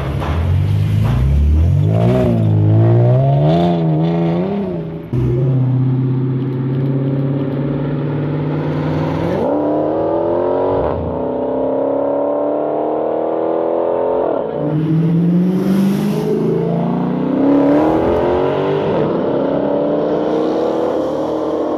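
Ford Mustang engine revving, its pitch rising and falling with quick blips of the throttle. About five seconds in the sound cuts to a car under acceleration, its pitch sweeping up several times with drops between, like gear changes as it pulls away.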